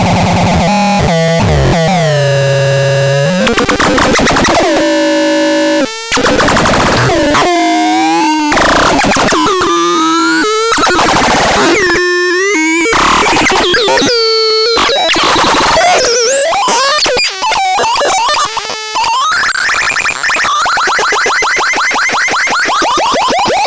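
Synthesizer making harsh, noisy electronic tones that keep changing, with pitches gliding up and down and brief cut-outs. Near the end it turns to a fast warbling sweep.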